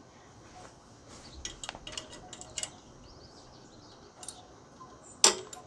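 Metal hand tools clicking and clinking as a ratchet and socket are worked onto the mini bike's bolts: scattered sharp clicks, then one loud click about five seconds in.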